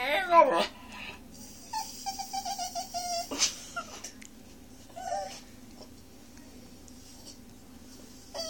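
Miniature schnauzer puppy howling and whining, begging for food at the dinner table: a loud wavering howl trails off in the first half-second, a whine follows about two seconds in, a short cry around five seconds, and another whine starts at the very end.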